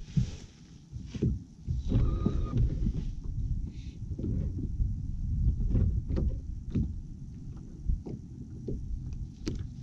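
Small waves lapping and slapping irregularly against the hull of a bass boat, over a steady low wind rumble on the microphone.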